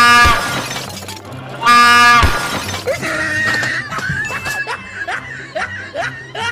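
Two loud blasts of a train horn prank sound, the first right at the start and the second about a second and a half later, each about half a second long, over background music.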